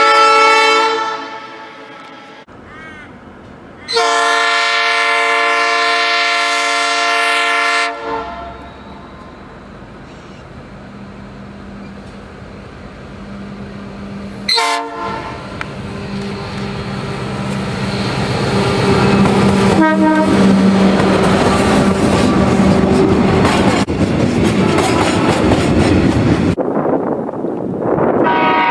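Train horns in a run of separate clips: a blast fading away at the start, a steady multi-note horn chord held for about four seconds, and a short toot halfway through. Then a train's rumble and wheel noise build up as it passes, and another horn blast starts near the end.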